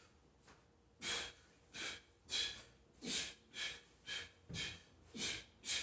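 A man breathing hard and fast from the exertion of burpees: after a quiet first second, nine short, sharp breaths come about every 0.6 s.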